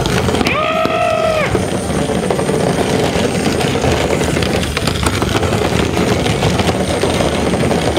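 Battery-powered Tonka Climb-Overs toy Jeep running along its plastic track, its small electric motor whirring steadily with light plastic clicks. A brief held tone sounds about half a second in.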